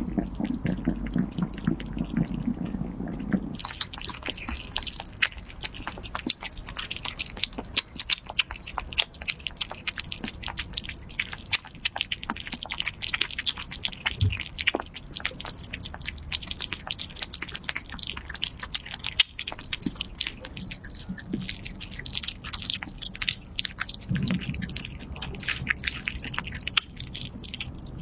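Kittens eating raw salmon and minced meat from a plate: rapid close-up chewing and smacking clicks. A low rumble from a kitten for the first few seconds, and briefly again near the end.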